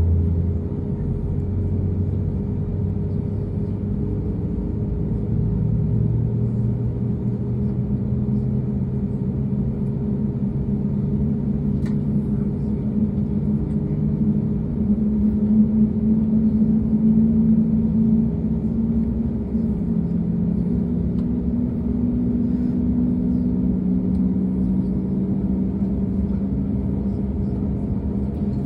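Pratt & Whitney PW1900G geared turbofan of an Embraer E195-E2 spooling up during engine start, heard from inside the cabin. A low hum with several steady tones that slowly rise in pitch.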